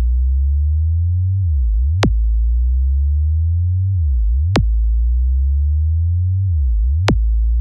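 Synthesized bass test signal: loud, deep sine-like tones with a fainter tone that glides slowly up and then drops back, the cycle repeating about every two and a half seconds, marked each time by a short click.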